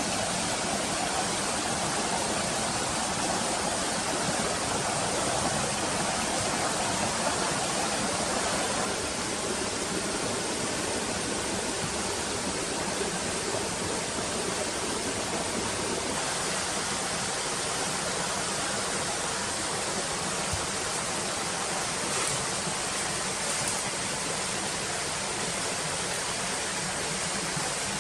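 A steady rushing noise of running water, even and unbroken throughout.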